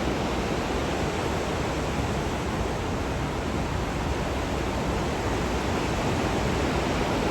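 Rain-swollen river and waterfall rushing: a steady, even wash of water noise with no breaks.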